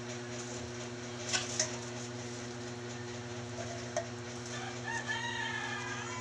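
A rooster crowing once, starting about five seconds in, over a steady low hum. Two sharp clicks come about a second and a half in.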